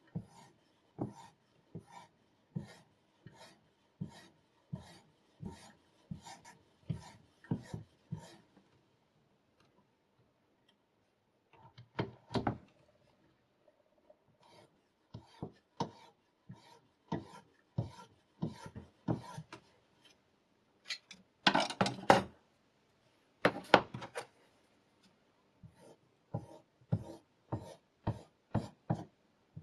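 Diamond sharpening stone drawn across a knife edge in short scraping strokes, about two a second, with a pause after about eight seconds and two longer, louder strokes a little past twenty seconds in.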